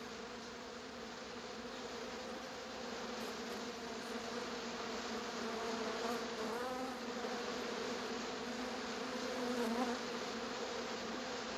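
A swarm of bees buzzing in a steady drone that slowly grows louder, its pitch wavering briefly about six seconds in.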